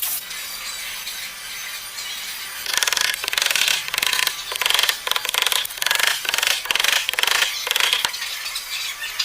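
A hand tool rubbing on wood in repeated back-and-forth strokes, as in sanding, rasping or sawing. There is fainter scraping at first, then a run of louder, even strokes starting nearly three seconds in that lasts about five seconds.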